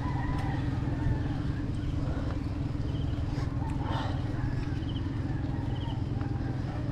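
Steady low rumble of riding a mountain bike up a concrete road: wind on the camera's microphone and tyre noise.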